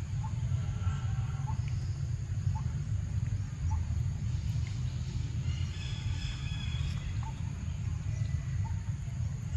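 Outdoor ambience: a steady low rumble with short, faint chirps repeating roughly once a second, and a brief higher call about six seconds in.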